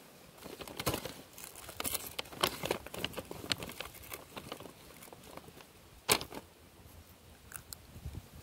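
Eating sounds close to the microphone: a run of crackly, crunching chewing over the first few seconds, then one sharp click about six seconds in.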